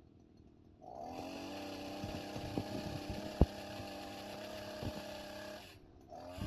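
Two-stroke brush cutter engine driving a chainsaw attachment, opened up about a second in and held at steady high speed for about five seconds, then throttled back, with a few sharp knocks while it runs, the loudest a little past halfway.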